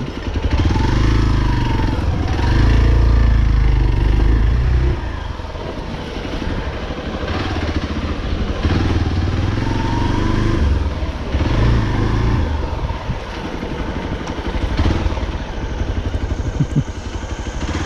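Hero XPulse 200 motorcycle's single-cylinder engine running while riding. It is louder with more throttle for the first five seconds or so, then eases off and varies with the throttle.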